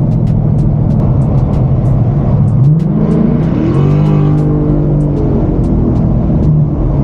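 Car engine under way on a freeway, heard from inside the cabin over road noise. About two and a half seconds in the revs climb as it accelerates, hold higher for a few seconds, then settle back near the end.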